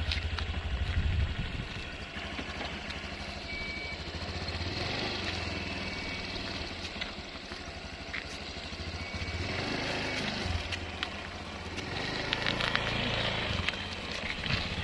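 Motor scooter engine idling with a steady low putter.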